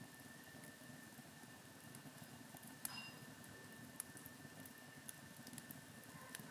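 Faint campfire crackling: scattered small pops and ticks over a quiet background.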